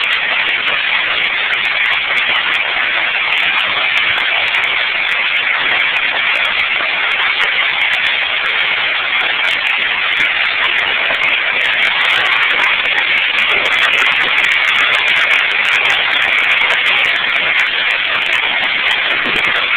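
Heavy hail and rain pelting down in a steady, dense hiss, with scattered sharp ticks of individual hailstones striking.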